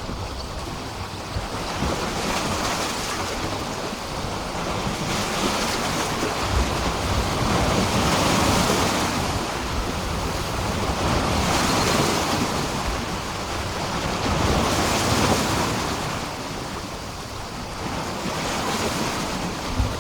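Sea waves washing and breaking against a pier, a steady rush of surf that swells and eases every few seconds, with the odd sharper slap of water.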